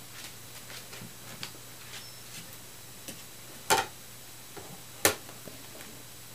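A plastic plate knocked down on a plastic high-chair tray, two sharp knocks a little over a second apart, with light taps and clicks before and between them.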